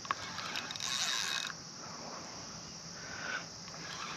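Spinning fishing reel's mechanism whirring and clicking in short spells while a hooked carp is played in close: a sharp click at the start, a spell of about a second shortly after, and a shorter burst about three seconds in.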